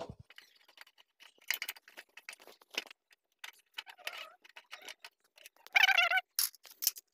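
Light scattered metallic clicks and ticks from a 10 mm T-handle socket wrench backing out the seat-bracket bolts. A brief pitched sound comes about six seconds in.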